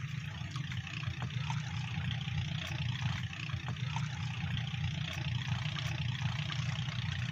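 A small boat engine running steadily, a low even rumble with a hiss over it.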